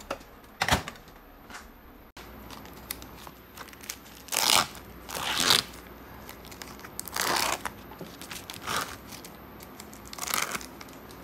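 A string of short crinkling, tearing rustles, about six of them a second or two apart, with a sharper knock about a second in.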